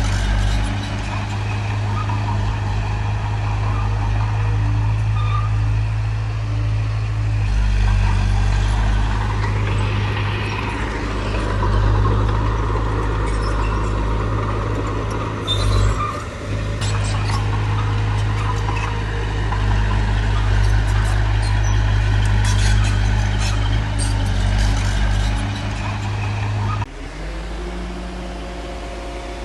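Heavy diesel construction machinery running steadily with a deep engine drone and scattered metallic clanks. Near the end the sound cuts abruptly to a quieter, steadier hum.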